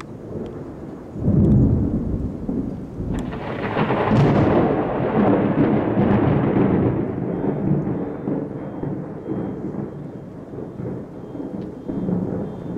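Thunder from a nearby lightning storm. A low rumble breaks out about a second in, then a sharper crack about three seconds in swells into a long rolling rumble that slowly fades.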